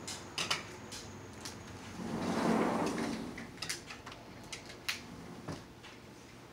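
King crab legs being cracked and pulled apart by hand: a string of sharp shell cracks and snaps, with one louder sound lasting about a second around two seconds in.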